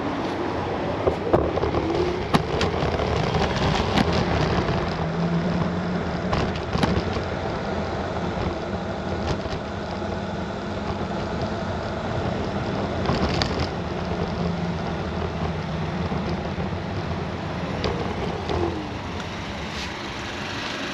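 Unagi electric scooter riding along city streets: steady wind rush on the microphone and road rumble, with several sharp knocks and rattles from the scooter jolting along.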